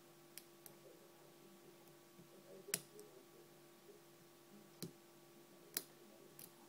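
Sparse faint metallic clicks of a pick and tension tool working the pins of a Sterling removable-core padlock, about half a dozen, the loudest about three seconds in, over a faint steady hum.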